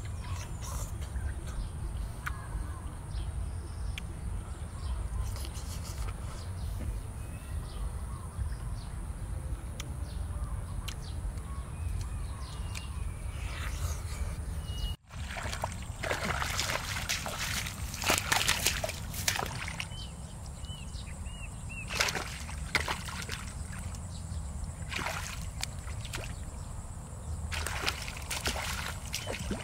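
Muddy shallow water splashing and sloshing in repeated bursts as hands grab fish in it, over a steady low outdoor rumble. The splashing starts about halfway through, after a calmer first half. A few short high chirps are heard near the end.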